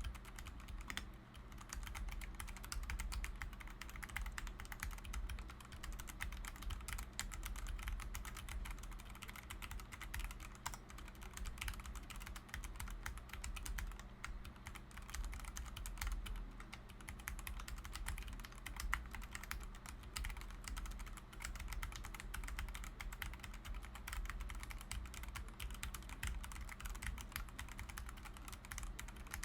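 Continuous fast typing on a LOGA x Carnival mechanical keyboard fitted with Gateron Brown tactile switches, a dense run of key clicks and bottom-outs.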